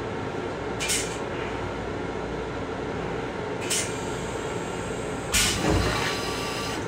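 Steady rumble of an M7 railcar with two brief hisses. About five seconds in, the restroom's stainless steel toilet flushes: a louder rush of water hissing into the bowl for about a second and a half.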